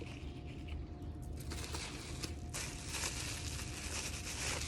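Rustling and crinkling of packaging being handled, strongest from about a second and a half in.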